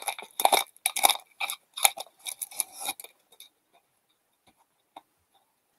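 Foil wrapper of an Upper Deck hockey card pack crinkling as the cards are pulled out: a run of short, irregular crackles that stops about three and a half seconds in. One faint tick follows near the end.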